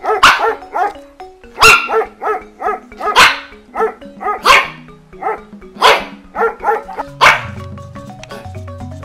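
A dog barking repeatedly, with the loudest barks about every second and a half, over background music.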